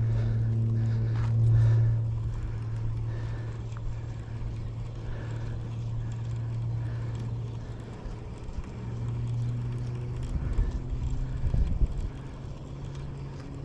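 A steady low motor hum, swelling a little and easing off, with a few low knocks and bumps near the end.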